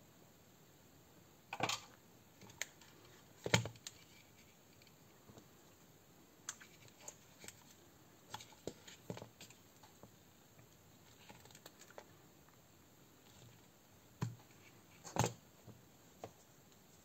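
Scattered clicks and knocks of hand work on an electric airsoft pistol: side cutters snipping wires and the pistol's frame and parts being handled and set down. Three louder knocks stand out, near the start, a few seconds in and near the end.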